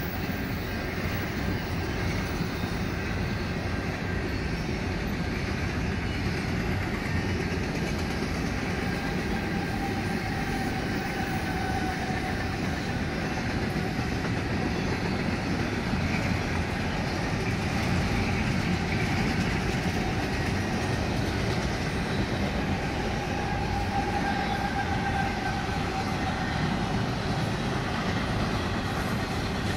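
Intermodal freight train's well cars rolling past steadily: steel wheels rumbling and clattering on the rail, with a faint high squeal swelling briefly twice.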